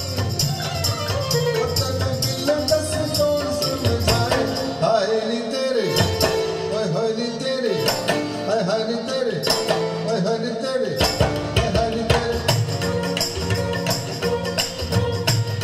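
A song with a wavering sung melody over a steady beat of hand percussion, played back through a Luxman M-02 power amplifier and C-02 preamp driving floor-standing speakers.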